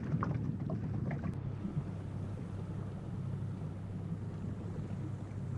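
Tender's outboard motor running steadily under way, a low even hum with a hiss of wind and water over it.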